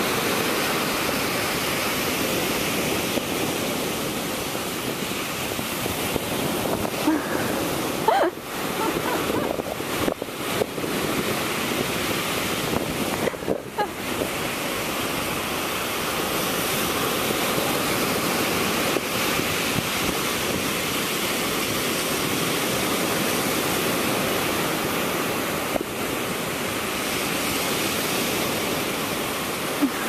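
Ocean surf breaking and washing up the beach in a steady rush, with wind blowing on the microphone. A few short bumps break it about eight, ten and fourteen seconds in.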